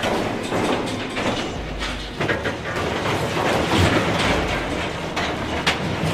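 Heavy machinery running with a dense, irregular metallic clattering and rattling.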